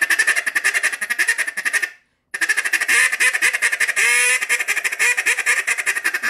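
Duck Lander duck call blown in a rapid feed chatter, two long runs with a short break about two seconds in and a brief sliding note near the middle. The reed is set engraving-up for a more abrupt, raspier feed with less hold.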